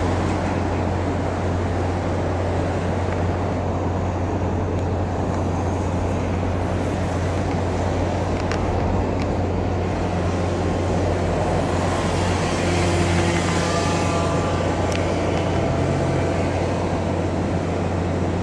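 Steady low mechanical rumble with a continuous low hum, and a faint higher whine joining about ten seconds in.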